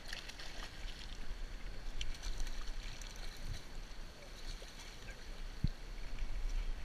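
Flowing creek water with wind rumbling on the microphone, and a hooked fish splashing at the surface around the start and again about two seconds in.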